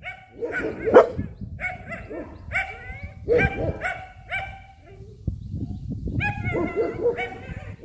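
German Shepherd puppy barking over and over in short, high-pitched yips, about two a second, with a brief lull about five seconds in.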